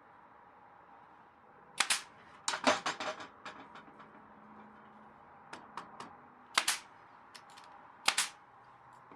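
Sharp, loud cracks at irregular intervals: four main ones, with a cluster of quicker cracks and lighter clicks between them. This is a nail gun driving fasteners into cedar boards.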